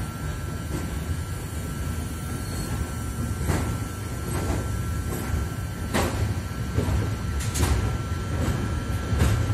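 Intermodal freight train's container wagons rolling past: a steady low rumble, with sharp clacks of the wheels every second or two.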